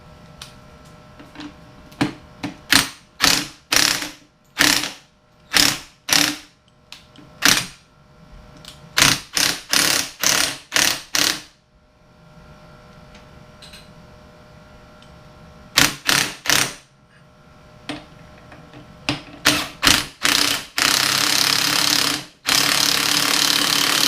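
Ratchet wrench clicking in short strokes, in groups with pauses, as it turns the screw of a manual bead breaker forcing a tire bead off an aluminum wheel rim. Near the end come two longer stretches of loud continuous rasping, a brief gap between them.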